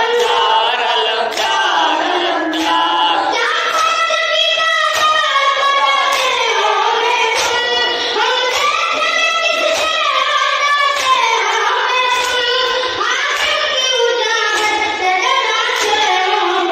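A young boy's high voice chanting an Urdu noha (Muharram mourning lament) into a microphone, with long held, gliding notes. Faint slaps of chest-beating (matam) sound under the chant.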